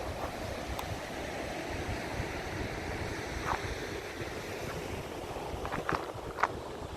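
Wind buffeting the microphone over the steady wash of ocean surf, with a few brief high chirps about halfway through and near the end.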